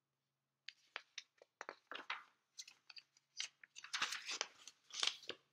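Paper pages of a picture book being handled and turned: a run of crisp paper crackles and rustles that starts under a second in and is busiest around four and five seconds in.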